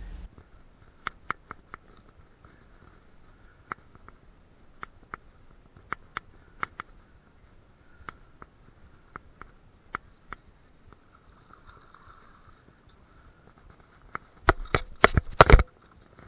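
Scattered light clicks from a spinning reel being cranked while a hooked fish is reeled in, then a quick cluster of loud knocks and clatter about a second and a half long, near the end.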